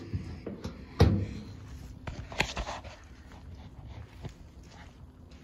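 Steel hood of an old International Harvester truck closed with one heavy metal thump about a second in, followed by a lighter knock a little over a second later.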